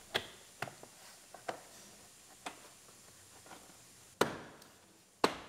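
Plastic interior trim panel clips snapping into place as the panels are pressed in by hand: about six sharp clicks, spaced unevenly, the two loudest near the end.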